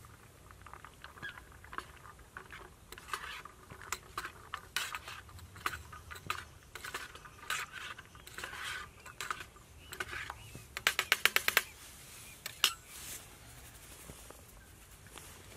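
Metal spoon stirring and scraping in a metal camping pot, with scattered clinks. About eleven seconds in comes a quick run of about eight sharp taps, then one more clink.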